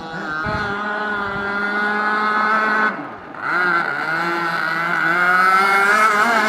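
Gas engine of a large RC boat running at speed, a steady buzzing tone. About three seconds in it briefly drops in pitch and level as the throttle is let off, then climbs back up and holds high.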